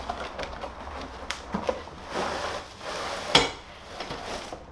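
A cardboard box being opened and handled and a plastic-wrapped laptop stand slid out of it: cardboard and plastic scraping and rustling with scattered small knocks, and one sharp knock about three and a half seconds in.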